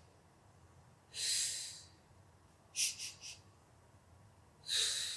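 A woman breathing audibly in a rhythmic Pilates pattern of three short breaths in and one long breath out. About a second in comes a long breath out, then three quick sniffing breaths in, then another long breath out near the end.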